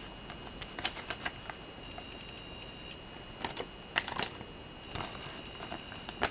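Folded paper instruction leaflet being unfolded and flattened by hand: irregular crinkles and crackles of paper, loudest around the fourth second.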